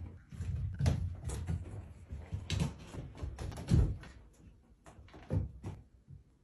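Irregular knocks and thumps, several in a row, with the loudest a little under four seconds in and the knocks dying away near the end.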